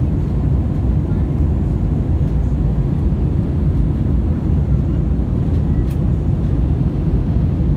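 Steady low rumble of an airliner's jet engines and rushing air, heard inside the passenger cabin while the plane climbs after takeoff.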